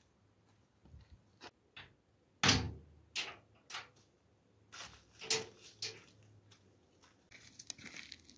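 Sheet-metal door clunking and rattling as it is worked: a string of sharp knocks, the loudest about two and a half seconds in.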